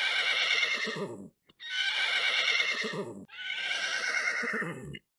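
A horse whinnying three times in a row, each call about a second and a half long and falling in pitch at its end.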